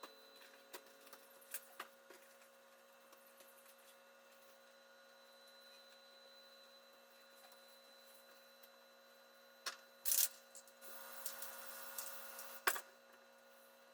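A steady electrical hum with a few small clicks, then a short hiss about ten seconds in and a longer hiss of about two seconds that ends in a sharp click.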